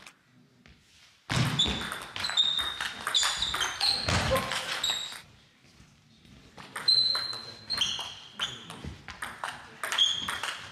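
Table tennis ball clicking back and forth between bats and table in quick rallies, with short high pings off the table top and echo from a large sports hall. One rally starts about a second in and stops near the halfway mark; a second starts about seven seconds in.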